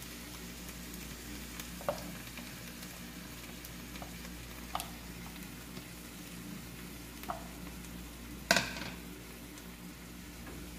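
Brown sauce (salsa española) sizzling in a hot frying pan on a gas burner as it is scraped from a bowl and stirred in with a silicone spatula. A few light taps are heard, and a louder knock comes near the end.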